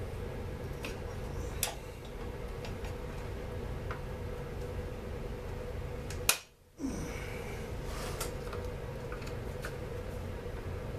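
Scattered light clicks and taps of a screwdriver and hand tools on a Stihl MS 250 chainsaw's housing as it is taken apart, over a steady hum. A sharp click about six seconds in is followed by a brief dropout.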